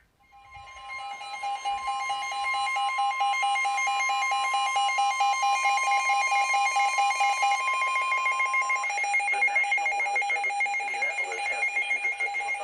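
Emergency alert attention tone, a steady electronic alarm of two pitches sounding together. It fades in over the first couple of seconds, and the higher pitch drops out about nine seconds in, leaving the lower tone.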